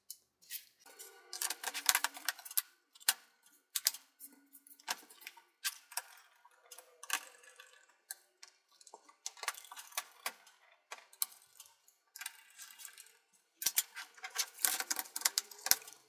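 Plastic clicks, snaps and taps as a ThinkPad T470's bottom cover is pressed back onto the chassis and fitted along its edges. Quick runs of clicks come about two seconds in, around nine to ten seconds, and near the end.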